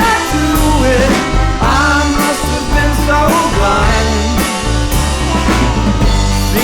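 Rock band music: a drum kit keeping a steady beat with cymbal hits, a strong bass, and a wavering melody line over them.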